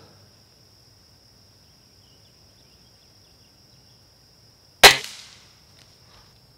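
A single shot from a rebuilt Stoeger X10 .177 spring-piston air rifle about five seconds in: a sharp crack that dies away over about half a second.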